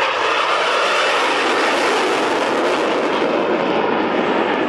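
MiG-29 jet fighter's twin RD-33 turbofan engines, loud and steady, as the jet climbs steeply away.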